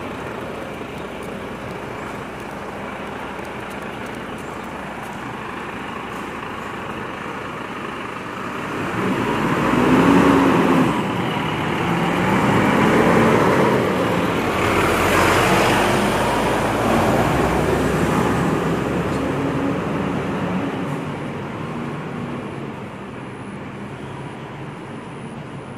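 Volvo FM 370 refuse truck's diesel engine drawing near, passing close and pulling away. The engine note rises and falls as it goes by and is loudest near the middle, then fades as the truck moves off.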